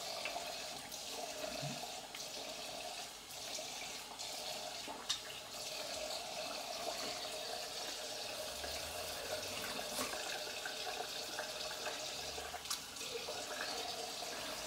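A bathroom tap running steadily into a sink, with splashing as shaving lather is rinsed off the face with the hands, and a few small sharp knocks.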